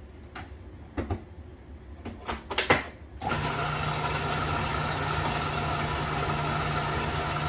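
Countertop food processor motor running steadily while blending coconut icing, with a low hum and a higher whine. It starts about three seconds in, after a few clicks and knocks of handling the machine, and stops abruptly at the end.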